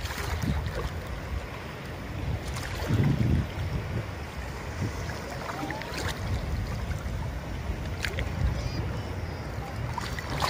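Wind rumbling and gusting on the microphone over shallow sea water lapping, with a few short splashes.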